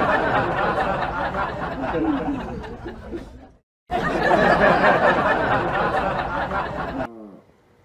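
A dense babble of many voices laughing and chattering. It cuts out suddenly for a moment a little past halfway, then resumes.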